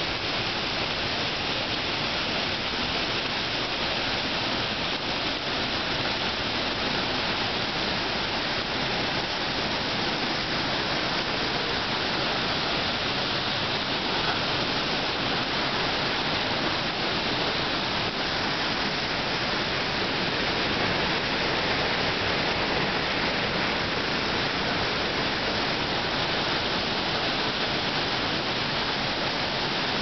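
Falling water of the La Paz waterfall heard at close range: a loud, steady, unbroken rush of water noise.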